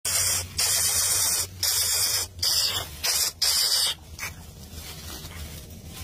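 Coucal nestling hissing with its beak gaping: a run of about six loud, harsh hisses, each under a second, that stop about four seconds in.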